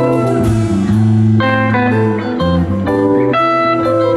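Live rock band playing: electric guitar lead notes over a bass line and drums with cymbals.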